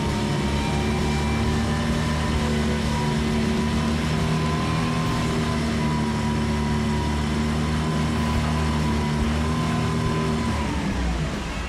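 An 8 hp four-stroke outboard engine on its stock carburetor runs at a steady speed under load in a test tank, its propeller churning the water. Near the end the engine note drops in pitch and fades as it is shut down.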